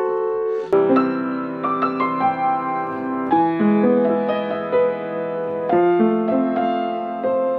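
Hellas upright piano, about 40 years old, being played: a slow run of chords, each struck and left to ring, changing every second or two.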